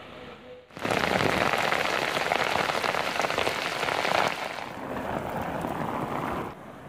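Heavy rain pouring down onto waterlogged muddy ground, a dense, loud hiss that starts abruptly about a second in. It eases a little partway through and stops suddenly near the end.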